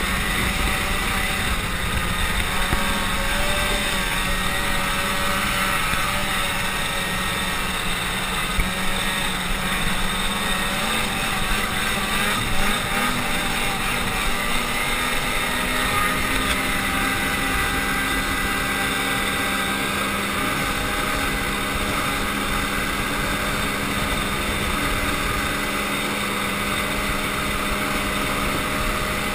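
Ski-Doo snowmobile running at speed across snow-covered ice, engine and track noise together. The engine pitch wavers slightly in the first few seconds, then holds steady.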